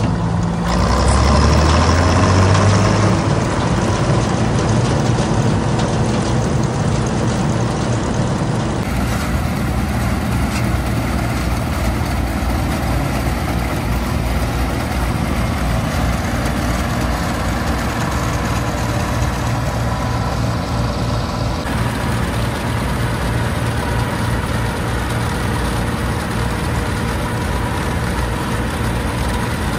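Bizon Super Z056 combine harvester's diesel engine revving up over the first few seconds, then running steadily at speed.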